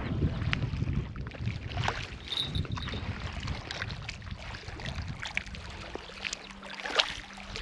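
Wind buffeting the microphone, strongest in the first few seconds, over small waves lapping a gravel riverbank, with scattered light clicks.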